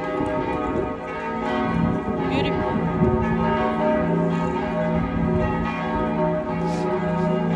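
Church bells of St. Stephen's Cathedral pealing together in a dense, sustained ringing. A few voices of passers-by can be heard under it.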